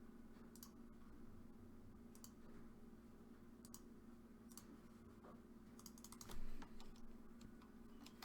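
Scattered keystrokes on a computer keyboard: single taps every second or so, then a quick run of several keys about six seconds in, over a faint steady hum.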